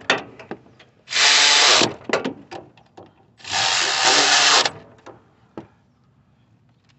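A power tool driving in the A/C compressor's mounting bolts, in two runs of about a second each, with small metal clicks and knocks between.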